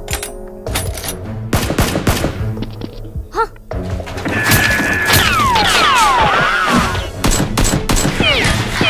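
Volleys of gunshot and impact sound effects for a Nerf blaster gunfight, over background music. A run of falling whistles sounds in the middle, among the shots.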